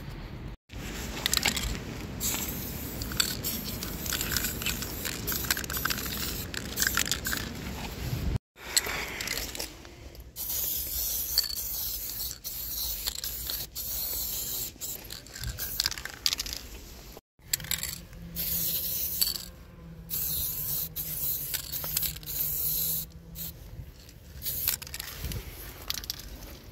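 Aerosol spray paint can hissing in a long series of short bursts with brief pauses between them as a tag is sprayed. Earlier there is rougher scraping and handling noise.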